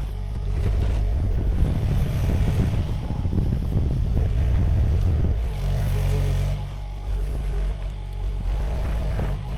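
Sany SY50U mini excavator's diesel engine running, with a louder, rougher stretch from about half a second to about five seconds in as the machine works under load, then settling back to a steady drone.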